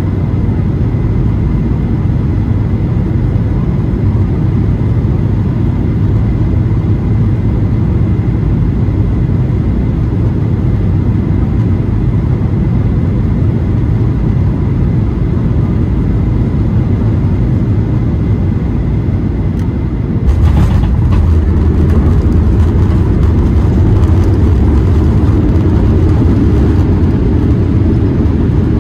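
Inside the cabin of a Boeing 737-800: the steady rumble of its CFM56-7B engines and the airflow during the landing. About twenty seconds in there is a brief knock, and the rumble turns louder and deeper: touchdown and the roll down the runway.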